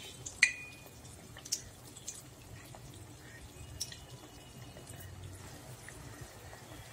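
Hot oil bubbling and crackling around an athirasam deep-frying in a steel kadai, with scattered sharp pops. About half a second in there is a sharp tap with a brief metallic ring, as the ladle strikes the steel pan while the sweet is being turned.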